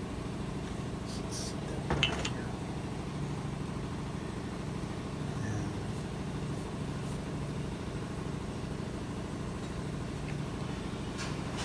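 Steady low mechanical hum of workshop background noise, with a sharp metallic clink about two seconds in and a few light clicks as trolling-motor parts, the steel housing and the armature, are handled.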